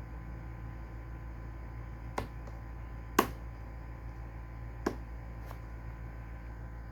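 A few sharp clicks, the middle one the loudest, over a steady low hum.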